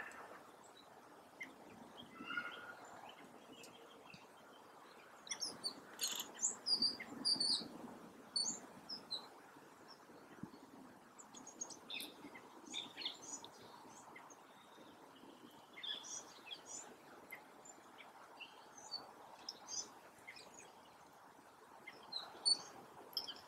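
Small woodland birds calling with short, high chirps in scattered bursts, busiest about a quarter of the way in, over a faint steady background hiss.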